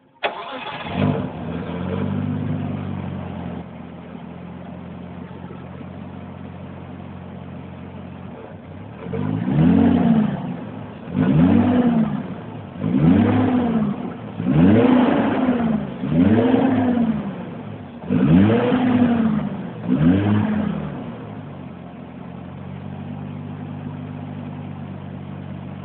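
Car engine starting, settling to a steady idle, then revved in seven quick throttle blips about one and a half seconds apart before dropping back to idle. The revving is done to listen for abnormal noises.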